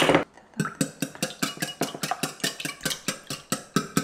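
Wire whisk beating raw eggs in a glass measuring cup: a fast, even clicking of the whisk against the glass, about six strokes a second, starting about half a second in after a short clatter.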